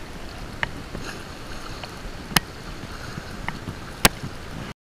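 Water washing and lapping against jetty rocks, with a few short sharp clicks and knocks from handling the fly rod and reel, the loudest two about two and four seconds in. The sound cuts off suddenly near the end.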